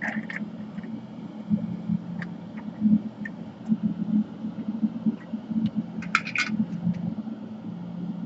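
Steady low hum of a bench exhaust fan, with scattered light clicks and a short run of quick clicks about six seconds in.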